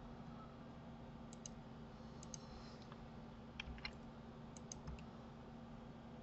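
Faint computer mouse clicks, a few scattered pairs, over a low steady hum.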